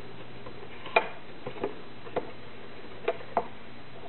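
About half a dozen light, irregular clicks and taps of a clear plastic embossing folder and the plates under it being handled and shifted into place on a Big Shot die-cutting machine's platform.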